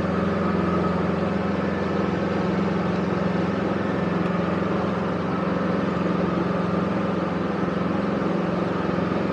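Small fishing boat's engine running steadily at speed under way, a constant drone with a rushing hiss of wake and wind over it.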